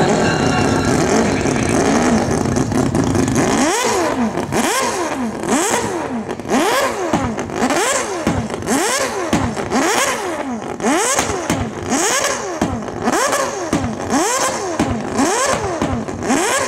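Mazda 787B's four-rotor R26B rotary racing engine, running under power for the first few seconds, then blipped again and again, about once a second, each rev shooting up and falling straight back.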